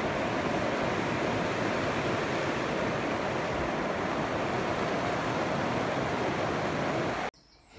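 Heavy rain shower falling, a steady hiss that stops abruptly shortly before the end.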